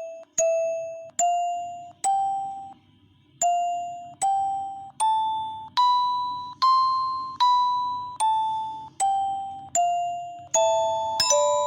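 Background music: a slow, simple melody of single bell-like struck notes, each ringing and fading before the next, with a brief pause about two seconds in and quicker notes near the end.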